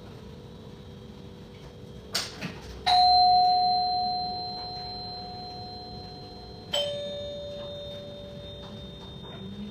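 Two-tone doorbell chime, ding-dong. A higher note rings out about three seconds in and fades slowly; a lower note follows about four seconds later. A short clatter comes just before the first note.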